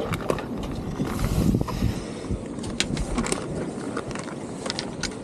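Van Staal spinning reel clicking irregularly, a few clicks a second, as line is worked in.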